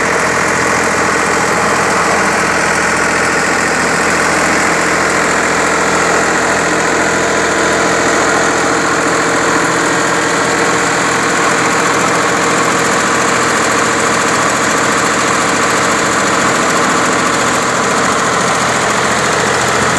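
Air-cooled three-cylinder diesel engine running steadily at an even speed, coupled to a centrifugal water pump.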